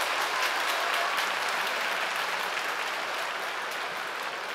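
Arena crowd applauding at the end of a sumo bout, the clapping slowly dying down.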